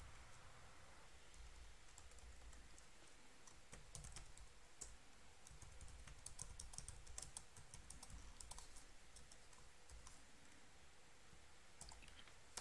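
Faint typing on a computer keyboard: irregular runs of key clicks, busiest in the middle, with a few more near the end.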